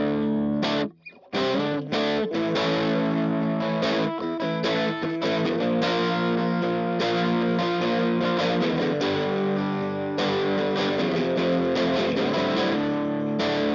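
1980 Greco EG600 Les Paul Custom copy played through an Orange amp with the gain at 12 o'clock: overdriven electric guitar chords that stop briefly about a second in, then ring on steadily.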